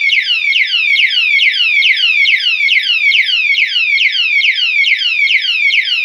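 Alarm padlock's built-in siren sounding loudly as a rapid run of falling sweeps, about four a second. This is its anti-tamper alarm, set off by touching or knocking the armed lock.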